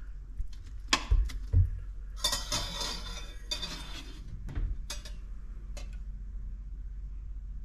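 A kitchen utensil clinking against a mixing bowl a few times, with about two seconds of scraping in the middle, as dough ingredients are worked together.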